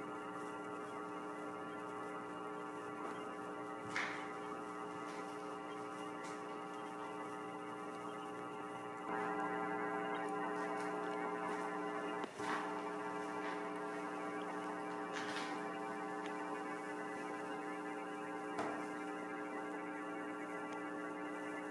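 Steady electrical hum with many overtones, stepping slightly louder about nine seconds in, with a few faint ticks scattered through it.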